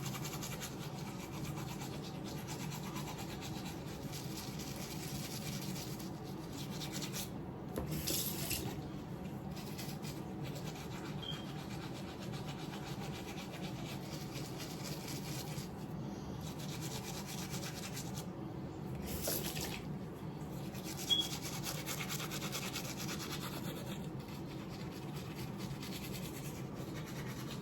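Toothbrush scrubbing teeth in a steady rubbing rhythm over a constant low background hum, with two brief louder bursts of scrubbing about eight and nineteen seconds in.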